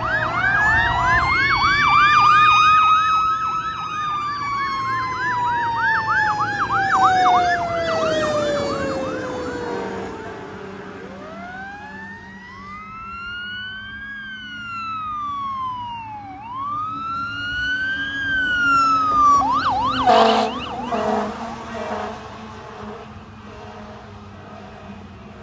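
Fire apparatus sirens: a fast electronic yelp over a slow siren wail that climbs, then winds down over about seven seconds. Then a wail rises and falls twice, and a brief yelp leads into short, loud air horn blasts about twenty seconds in. A low steady truck engine tone follows.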